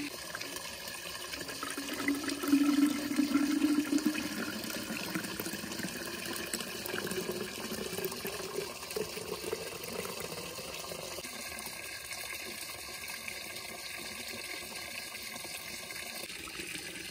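Raspberry juice poured from a cooking pot into a glass bottle: a liquid gurgle, loudest two to four seconds in, that rises in pitch as the bottle fills.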